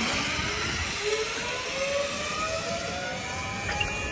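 Zipline trolley running down a steel cable, a steady whirring whine that rises in pitch as the rider picks up speed.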